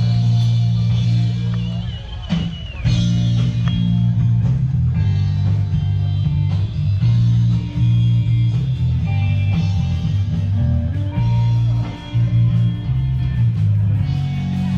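Rock music with electric guitar, a strong bass line and a drum kit keeping a steady beat, with a short break about two seconds in.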